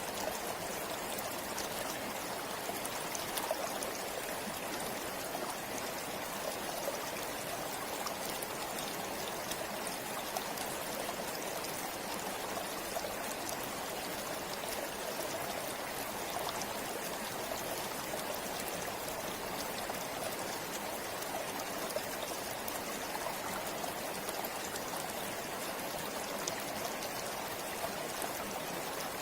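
A river flowing steadily over stones, a continuous rushing and splashing of water with fine droplet patter.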